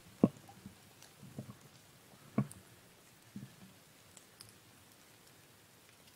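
Slow footsteps through snow-dusted leaf litter and undergrowth: a handful of dull thuds about a second apart, the first the loudest, with faint high ticks among them. The steps stop about three and a half seconds in.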